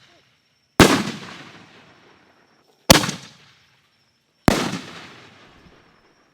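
Three loud firework reports from Excalibur canister shells, each a sudden crack that trails off in a long echo; the second and third come about two and one and a half seconds apart.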